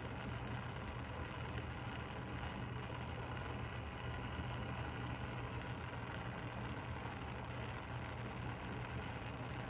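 Samsung top-control StormWash dishwasher (42 dBA) running a wash cycle: a steady low hum with a soft, even rush of water noise over it.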